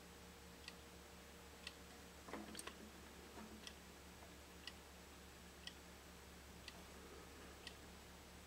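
Near silence: a faint low hum with a soft tick about once a second, and a brief small clatter a little over two seconds in.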